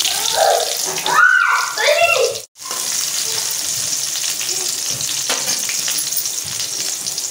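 Sliced onions and cumin seeds frying in hot oil in a stainless steel kadai: a steady sizzle. It cuts out for an instant about two and a half seconds in.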